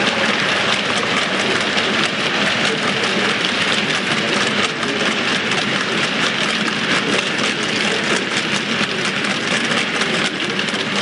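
Long train of 7mm-scale model hopper wagons running past close by: a steady rumble of wheels on the track with a fast, fine clicking.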